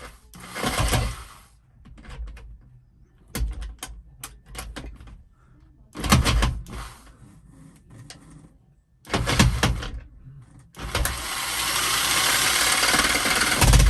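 Electric jigsaw with a longer blade running in several short bursts, with a few clicks between them, then cutting continuously near the end.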